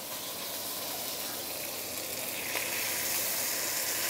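Turmeric-coated fish pan-frying in oil under a banana leaf in a non-stick wok, sizzling steadily; the sizzle grows a little louder about halfway through.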